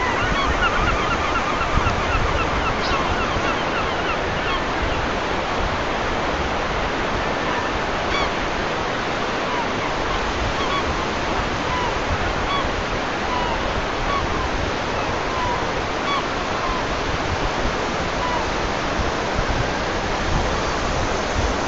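Steady rushing water noise, with short bird calls scattered over it. The calls are thickest in the first few seconds.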